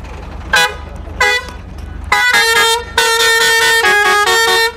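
Truck air horn sounding two short toots, then a long loud blast of several notes at once that steps down in pitch and back up again near the end.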